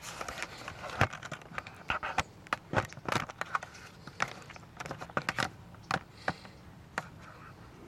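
Irregular hand-handling clicks, knocks and light scrapes, the loudest about one second and about three seconds in, as the camera is set down and the door lock cylinder is worked into the car door.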